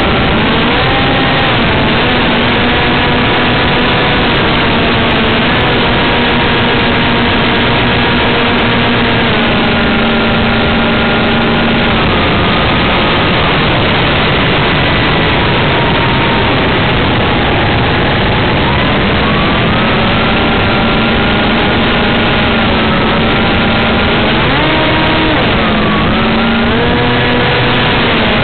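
Motor and propeller of an FPV model plane heard from its onboard camera, a steady whine over a loud hiss of air noise. The pitch rises with throttle about a second in, drops about halfway through, climbs again later and shifts up and down once more near the end.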